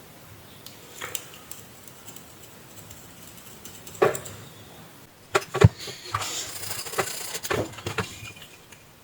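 Small clicks, taps and light rubbing from tools and small parts being handled on a workbench: a single click and a knock in the first half, then a quick run of clicks and taps from about five seconds in.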